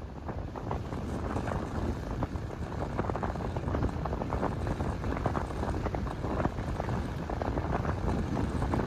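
Wind buffeting the microphone: a steady, gusty rumble with rapid flutter.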